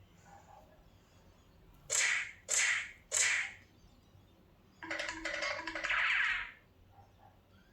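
Slap sound effect played from a phone's sound-effects app: three quick slaps about two seconds in, then a longer, busier effect with a tone in it a little later.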